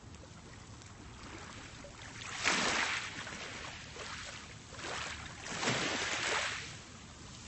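Small, calm sea waves washing onto a pebble beach, with the hiss of water running through the stones. Three swells come in, the first about two and a half seconds in the loudest, the last drawing out longer before it fades.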